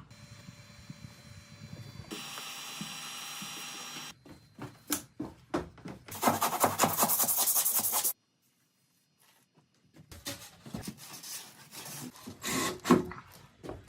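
Construction work sounds in quick cuts: a loud rasping stretch like sawing or scraping, with scattered knocks before and after and a short gap of complete silence.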